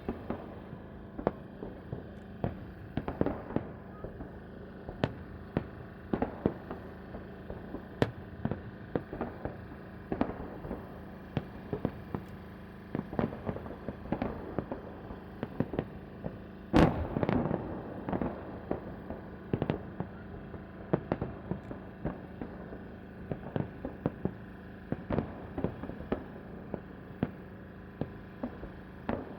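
Fireworks salute: aerial shells bursting in an irregular series of sharp bangs, roughly one or two a second. The loudest bang comes a little past the middle and is followed by a couple of seconds of crackling.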